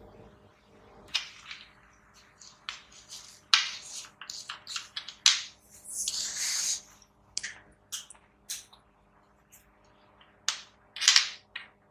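Hands handling small parts on a wooden desk, an aluminium heatsink bracket and a syringe of thermal paste, making a run of sharp clicks and taps. A longer rustling scrape comes about six seconds in, and a quick cluster of clicks near the end.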